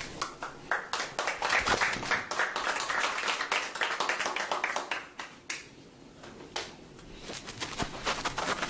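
Applause from a small room audience for about five seconds after the speech, then dying away into scattered sharp clicks and taps.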